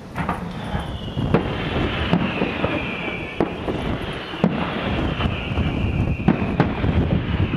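Fireworks display by Feuerwerke Jost: aerial shells bursting, with sharp bangs about once a second over a dense rumble, and a steady hiss that slowly falls in pitch. The display suddenly gets louder just after the start.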